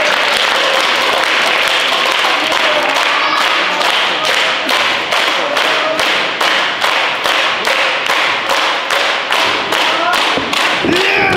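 Wrestling crowd applauding, with a few shouts, settling after a few seconds into steady clapping in unison at about three claps a second.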